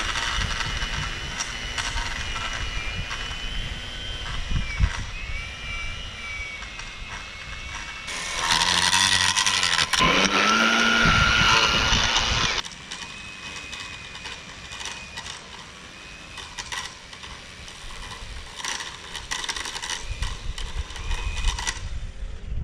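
EGO 56V battery power head driving its 8-inch edger blade along a lawn edge: an electric motor whine that rises and falls in pitch as the blade meets the soil. From about 8 to 12.5 seconds in it is much louder, then drops back to a quieter run.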